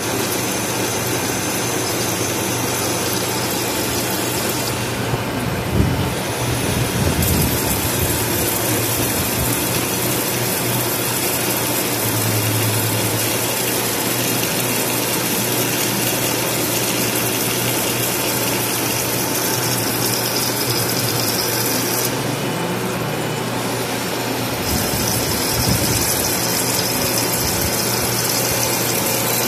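CNC wire-cut EDM machine running and cutting, with sparks at the wire and coolant flowing: a steady mechanical noise with a high hiss that drops away briefly twice, about five seconds in and again a little past twenty seconds.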